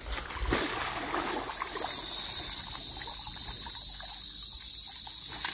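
Water sloshing and dripping as a plastic basket is dipped through a shallow muddy pond. Then a loud, steady, high-pitched insect buzz swells in over about two seconds and holds.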